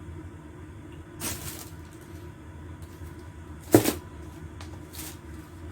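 Three short handling noises over a steady low hum: a soft knock about a second in, a sharper, louder clack a little before four seconds, and a fainter one about a second later, from items being handled.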